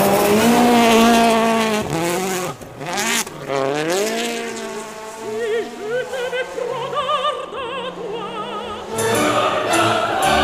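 Citroën DS3 WRC rally cars' 1.6-litre turbocharged four-cylinder engines revving hard, pitch climbing and dropping again and again through gear changes as the cars pass one after another on a snow stage.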